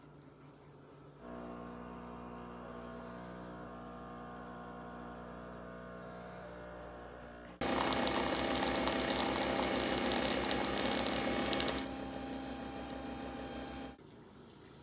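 Nespresso Vertuo coffee machine brewing: a steady hum starts about a second in, then about seven and a half seconds in a much louder whirring with a fast low pulse takes over as the machine spins the capsule and pumps coffee into the cup, easing slightly before cutting off near the end.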